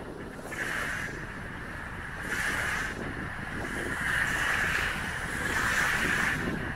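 Small wind-driven waves washing onto the shore in repeated surges every second or two, with wind rumbling on the microphone.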